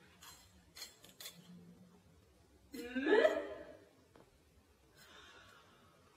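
A woman's short vocal exclamation, rising in pitch, about three seconds in. A few faint sharp clicks come before it.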